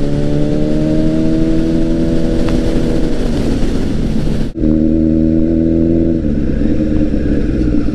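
Honda CBR1000RR's inline-four engine running at steady revs while riding, with wind rush over it. The sound breaks off for an instant about four and a half seconds in, then the engine carries on at a slightly lower steady pitch.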